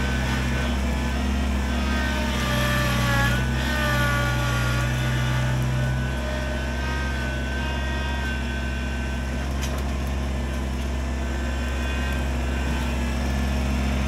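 Kubota BX23S compact tractor's three-cylinder diesel engine running steadily under work, with a higher whine over it that rises and falls in pitch as the tractor moves about.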